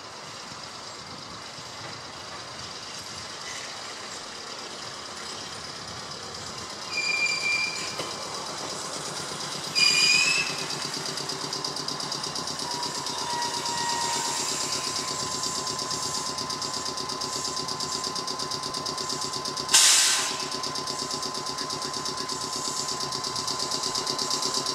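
Gakunan Railway 7000 series electric railcar (a rebuilt Keio 3000 series car) running into the station and coming to a stop, with two short high brake squeals. Standing at the platform, it gives off a steady high whine, and a sudden loud hiss of air comes about twenty seconds in.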